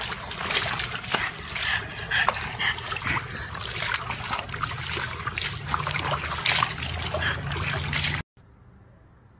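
Wet splashing and trickling: a busy run of irregular watery clicks and splashes that cuts off abruptly about eight seconds in, leaving a faint hush.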